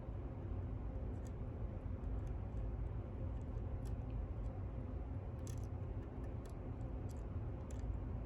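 Faint, scattered clicks of a hook pick lifting and setting the pins of a pin-in-pin lock cylinder with spooled drivers, over a steady low hum.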